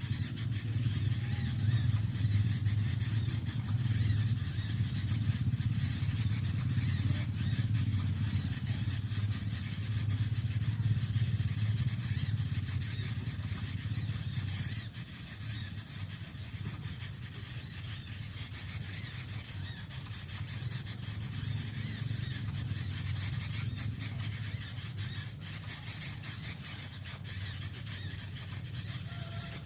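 Small birds chirping rapidly: many short, high-pitched, arched notes repeating throughout, over a steady low rumble that eases about halfway through.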